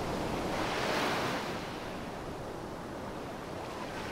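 Sea surf breaking on a sandy beach and washing up the shore, one wave swelling to a peak about a second in and then easing into a steady wash of foam.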